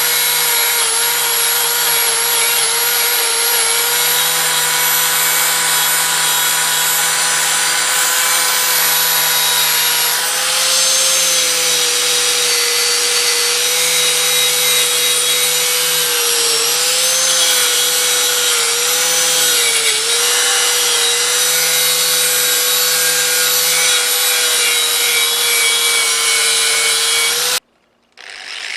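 Electric grinder motor running at a steady high speed, its pitch sagging briefly a few times as the tool is pressed against the work. Near the end the sound cuts out, then the motor spins up again with a rising whine.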